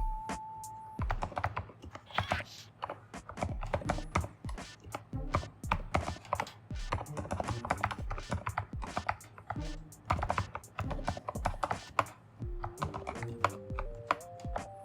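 Typing on an AKKO 3098B mechanical keyboard: a dense, irregular run of key clacks, with background music underneath.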